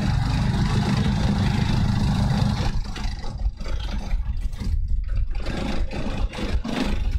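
Wind buffeting the microphone: a low, even rumble that turns into uneven gusts about three seconds in.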